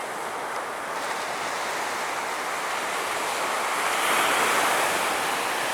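Surf on the beach: a wave rushing in, swelling to a peak about four seconds in and then easing off.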